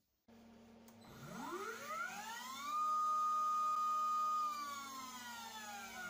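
Water-cooled 0.8 kW Chinese CNC spindle motor run from its VFD on a test run after its burnt-out power connector was repaired. A low electrical hum starts just after the beginning, then the spindle's whine climbs steeply in pitch as it spins up and holds at a high, steady tone for about two seconds, which is the loudest part. It then falls away as the spindle slows down.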